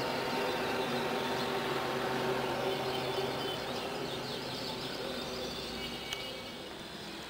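Steady low engine hum of passing traffic, fading away in the second half, with a few faint bird chirps in the middle and a single sharp click near the end.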